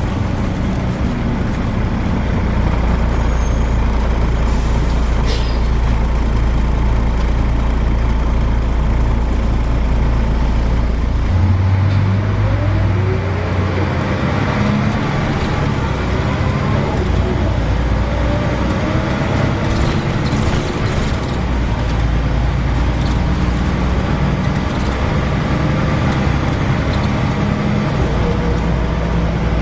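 Volvo B10BLE bus engine running with its ZF automatic gearbox. About eleven seconds in the engine note changes as the bus pulls away, and a gearbox whine rises in pitch over several seconds, then keeps sounding as it drives on.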